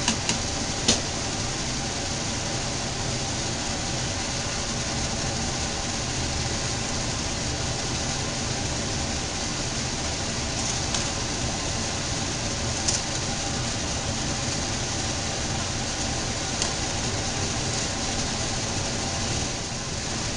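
A metal spoon clinks lightly against a saucepan as rice in tomato broth is stirred and seasoned, about a second in and twice more later. A steady whooshing kitchen hum runs underneath.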